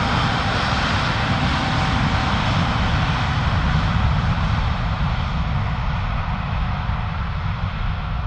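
Airbus A350-941's Rolls-Royce Trent XWB turbofans running at take-off power as the airliner rolls away down the runway: a loud, steady rumble with a rushing hiss, and a faint high whine in the first second or so. The sound eases slightly near the end.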